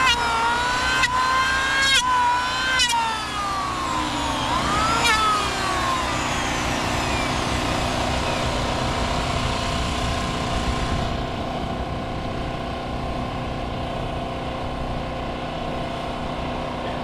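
An engine revving with a wavering pitch and a few sharp knocks. About five seconds in its pitch falls away and it settles into a steady run.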